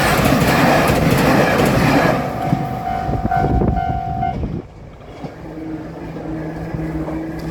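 Japanese level-crossing warning bell ringing in a steady pulsing "kan-kan" as a diesel railcar rumbles through the crossing. The train noise fades after about two seconds, the bell stops about four seconds in, and a quieter steady hum remains.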